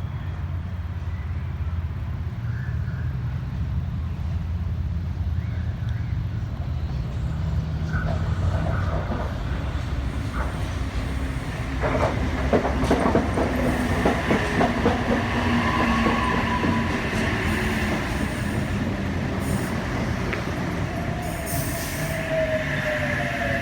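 Sydney Trains H-set (OSCAR) electric multiple unit pulling into a station: a steady low hum, then wheels clicking rapidly over rail joints from about halfway, and a whine that falls in pitch near the end as the train slows to a stop.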